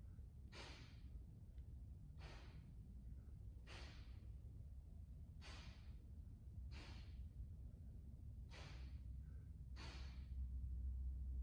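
A man exhaling hard through the mouth, seven sharp breaths about a second and a half apart, with the effort of one-arm dumbbell overhead presses. A low steady hum lies underneath.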